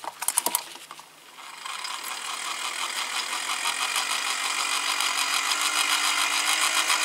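Clockwork fan mechanism of a Vulkan bee smoker: a few ratchet clicks as it is wound up, then the clockwork runs with a fast, even rattle that slowly grows louder, blowing air through the smouldering fuel.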